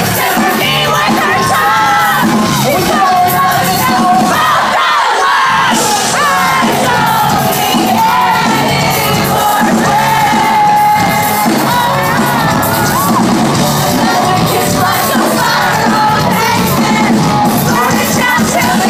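Live post-hardcore band playing loudly with electric guitars, drums and a singing voice, and crowd voices yelling and singing along.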